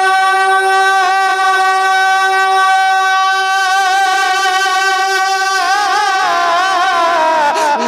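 A man singing a naat solo. He holds one long high note for about five and a half seconds, then breaks into a wavering, ornamented run that falls in pitch near the end.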